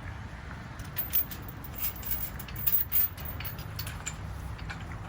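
Steady low background rumble with scattered light clicks and rustles, busiest over the first three seconds.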